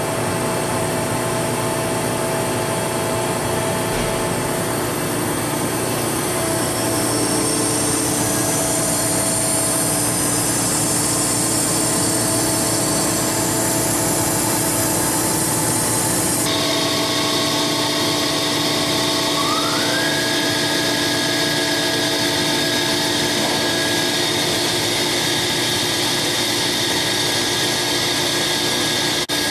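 Okuma MCR-B II machining center running with a steady mechanical whine and hum. About two-thirds of the way through, the sound shifts abruptly. A few seconds later a spindle tone rises in pitch over about a second and then holds steady as the attachment head's spindle comes up to its 3,000 RPM top speed.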